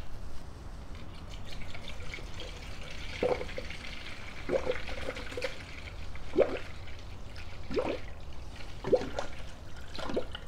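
Cooling system cleaner poured from a plastic bottle into a plastic funnel in a car's radiator filler neck: a steady trickling pour, with a gurgle about every second or so as air enters the bottle.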